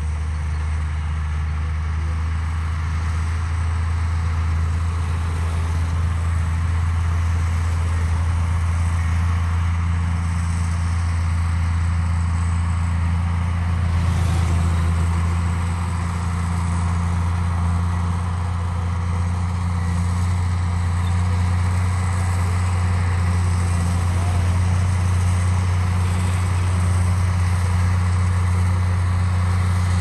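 Komatsu D53P bulldozer's diesel engine running steadily as the machine works, a continuous low drone with only slight swells in level.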